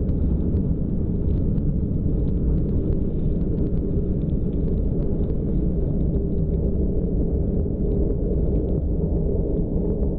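Fighter jet engine at full takeoff power as the jet lifts off and climbs away: a loud, steady rumble with a scatter of crackles through it.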